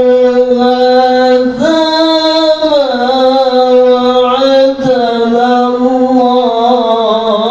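A man's voice reciting the Qur'an in the melodic tilawah style into a handheld microphone, holding long ornamented notes. The pitch steps up about a second and a half in and glides back down about a second later.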